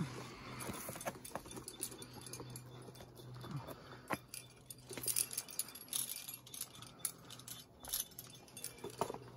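Metal climbing gear on a harness rack, carabiners and quickdraws, clinking and jangling irregularly as the climber moves up the rock.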